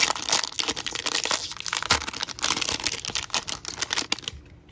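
A baseball card pack wrapper being torn open and crinkled in the hands as the cards are pulled out, a busy crackling that stops about four seconds in.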